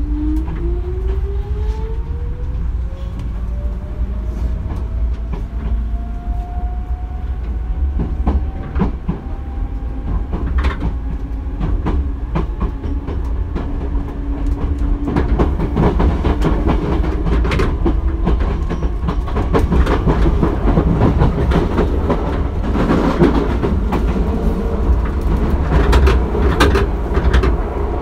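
Hankyu 3300-series electric train heard from inside the car as it gathers speed. The motor and gear whine rises steadily in pitch over the first several seconds and then levels off into a steady hum. Running rumble follows, with sharp rail-joint clacks that grow more frequent and louder in the second half.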